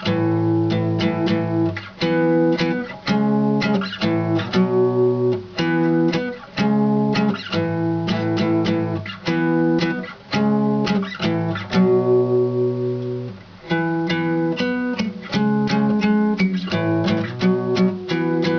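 Acoustic guitar being strummed in a steady rhythm, chord after chord, with one chord left to ring longer about two-thirds of the way through.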